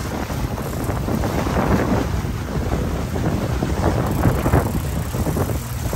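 Wind buffeting the microphone over the rushing, churning water of a moving boat's wake, with a steady low rumble underneath.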